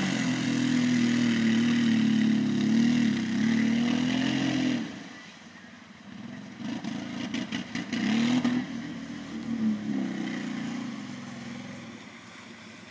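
Prowler side-by-side's engine revving hard under load as it pushes through creek water, then dropping off about five seconds in. It picks up again in uneven surges with a few sharp clattering knocks, and fades quieter near the end.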